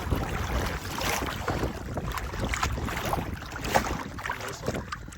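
Wind buffeting the microphone, with water lapping and slapping irregularly against the hull of a small boat on open water.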